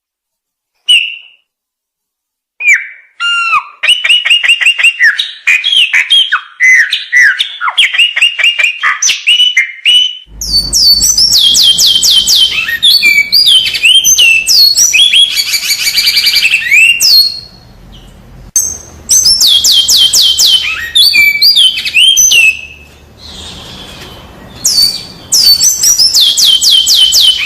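Songbird singing fast, loud strings of repeated whistled and chattering notes. The phrases start after a second of silence and turn louder and higher-pitched about ten seconds in, with brief pauses between song bouts.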